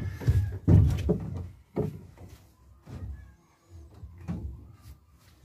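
A wooden plank knocking and bumping against the wooden hull of a motor banca as it is shifted into place along the side. There are several dull wooden knocks, the loudest about a second in, with fainter ones after.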